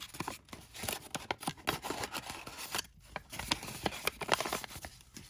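Small packaging bag being handled and opened by hand: crinkling and rustling with many small crackles and clicks, pausing briefly about three seconds in.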